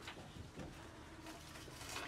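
Low background hiss with a couple of faint clicks of small tools being handled on a table.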